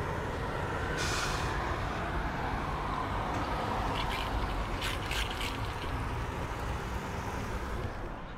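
Steady rushing, hissing noise over a low hum, with a few brief scraping or knocking sounds about halfway through; it cuts off abruptly at the end.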